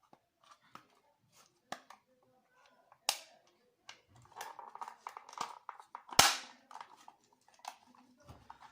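Sharp clicks and snaps of circuit breaker parts being handled and fitted back together. There is a strong snap about three seconds in, a run of small rattling clicks, then the loudest snap about six seconds in.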